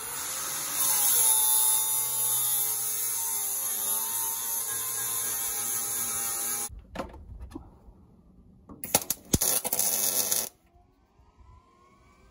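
MIG welding steel overhead with a Millermatic 211: a steady hiss with a buzzing hum for about six and a half seconds. After a few clicks, a second, shorter weld of under two seconds follows near the end.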